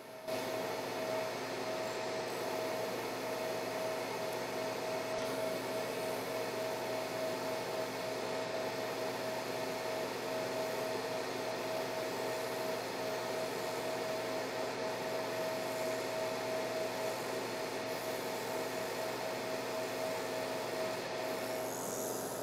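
Cloudray 50-watt fiber laser engraving through a computer chip: a steady mid-pitched whine over a fan-like hiss from the fume exhaust, starting suddenly as the job begins. The whine cuts off about a second before the end while the hiss carries on.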